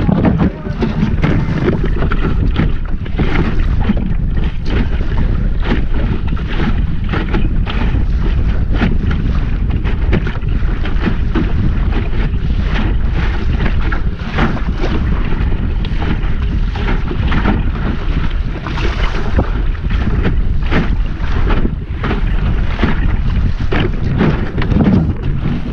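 Wind buffeting the microphone of a small sailing dinghy under way, a steady low rumble, with water splashing and slapping irregularly against the hull.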